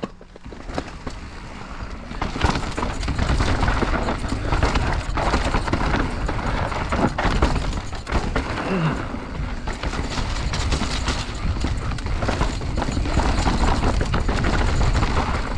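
Mountain bike riding fast down a rough, loose dirt trail: wind rumbling on the camera microphone, tyres on dirt and gravel, and the bike rattling and knocking over bumps. It builds over the first couple of seconds and stays loud.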